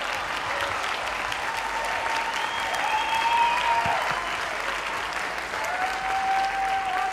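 A large seated audience applauding steadily, with a few long held calls over the clapping.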